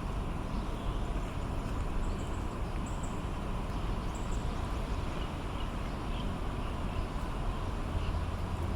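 Outdoor ambience of distant road traffic: a steady low rumble, with a few faint, brief high-pitched chirps over it.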